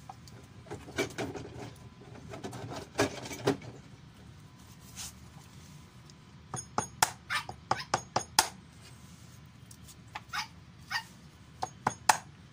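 A hammer knocking on a small block of wood in quick series of sharp knocks, in two bursts through the second half, with a dog barking in the background.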